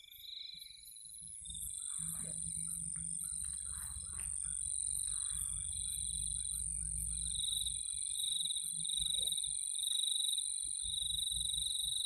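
Night chorus of frogs and insects: a steady high-pitched buzzing trill with short calls repeating about three times a second through the second half.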